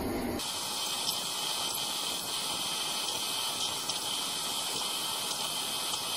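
Mini lathe rough-turning a stainless steel rod: a steady high hiss of the cutting tool shaving the bar, with faint scattered ticks, setting in about half a second in as the low rumble drops away.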